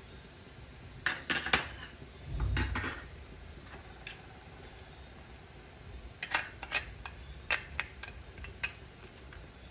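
Metal kitchen utensils clinking and knocking against a wok and other metal, in short clusters of sharp clicks, with one dull thump about two and a half seconds in.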